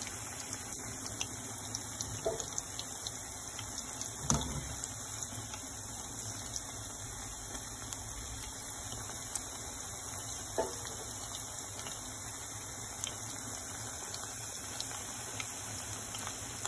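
Battered fritters deep-frying in hot oil: a steady sizzle with scattered small pops, and a single dull knock about four seconds in.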